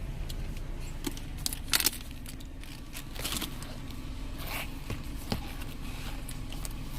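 Rustling, scraping and a few sharp clicks from rummaging for money inside a car, over a steady low rumble.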